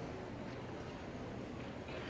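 Low murmur of audience chatter and shuffling in a large hall, with a couple of faint knocks. No music is playing.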